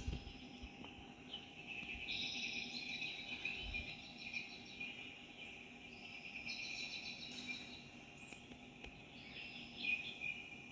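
High-pitched chirping trills from small animals in the background, several overlapping stretches that come and go.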